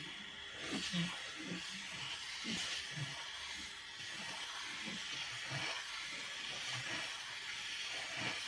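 Two pencils scratching on paper as both hands scribble loops at once: a steady scratchy hiss with repeated strokes about once or twice a second.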